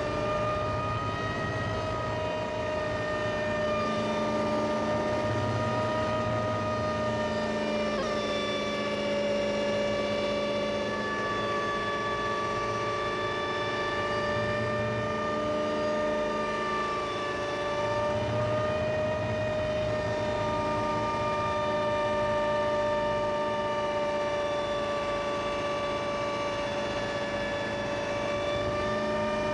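Hummingbird helicopter with a V8 engine heard from on board in flight: steady engine and rotor noise with a high whine that drifts slightly in pitch.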